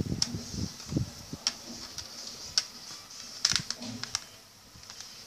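Light, irregular plastic clicks and taps from hands handling a Toshiba C640 laptop's screen assembly. There are about a dozen sharp clicks at uneven intervals, with some soft rubbing in the first second.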